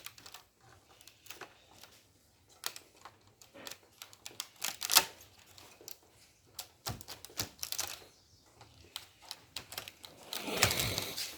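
Scattered light clicks and taps of hand work with small parts, coming irregularly, with a louder rustling scrape near the end.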